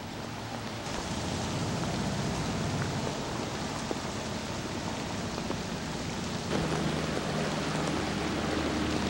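Heavy rain falling steadily on wet pavement and flooded streets: a continuous, dense hiss.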